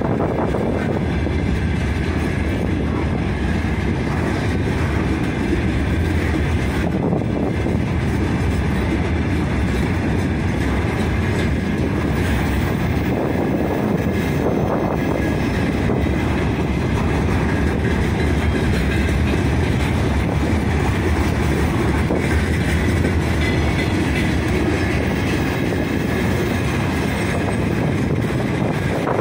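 Freight train wagons rolling steadily past close by: an unbroken rumble with the clickety-clack of steel wheels over the rails.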